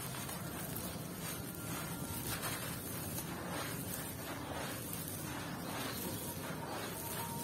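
Hands crushing a dry square of compacted sand and gritty red dirt, the crumbled grit pouring onto gravel in a steady gritty rush broken by repeated crunches.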